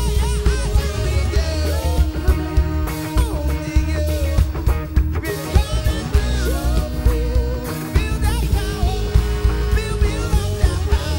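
A rock band playing with a singing voice over guitar, bass and a steady drum beat.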